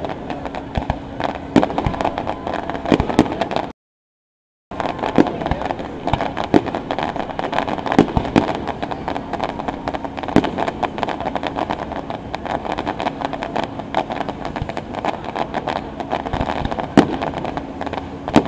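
Fireworks display going off close by: a dense, irregular run of bangs and pops from shells and fountains. The sound cuts out completely for about a second near the start.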